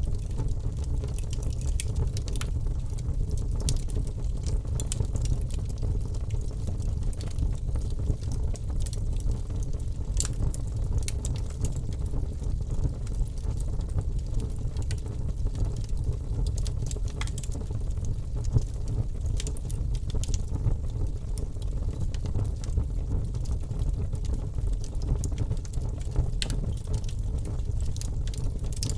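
Wood fire crackling in a fireplace: a steady low rumble of the burning fire with irregular sharp pops and crackles.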